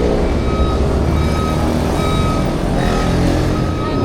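Motorcycle engines idling with a low, continuous rumble, while a high electronic beep repeats at a steady pace.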